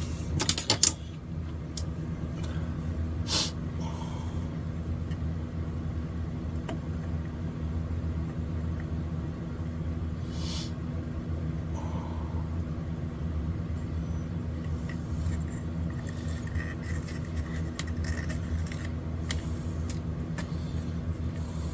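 Steady low machine hum, with a few brief clicks from handling.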